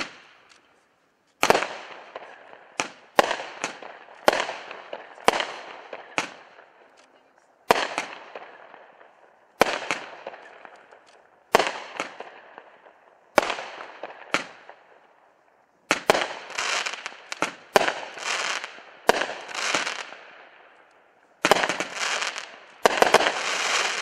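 Winda Strong Man 16-shot consumer fireworks cake firing: a string of sharp bangs, each shell bursting into a fading crackle. The shots come every second or two at first, then faster and overlapping in the second half, with denser crackling.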